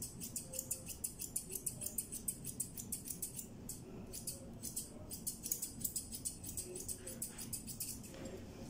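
Curved grooming scissors snipping rapidly through a long-haired cat's coat, a quick even run of crisp metallic snips about five a second, stopping about eight seconds in.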